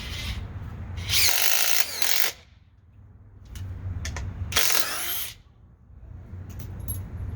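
DeWalt DCF850 20-volt impact driver hammering a lag bolt into wood in two runs of rapid impacts. The first starts about a second in and lasts just over a second; the second comes about four and a half seconds in and lasts under a second.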